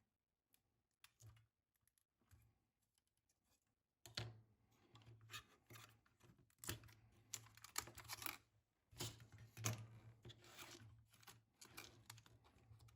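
Faint, irregular clicking and rustling of hands working on a disassembled IBM Model M keyboard assembly and its flat flex cable connectors. Near silent with a few soft clicks at first, then busier from about four seconds in.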